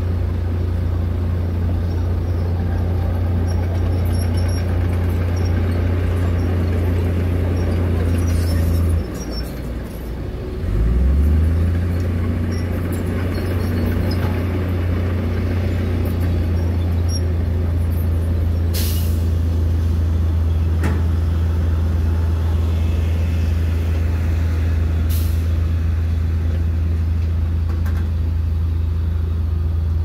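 Heavy diesel engines of a dump truck and earthmoving machinery running with a steady low drone. The drone dips about nine seconds in and comes back louder a couple of seconds later. Two short hisses of air in the second half, typical of a truck's air brakes.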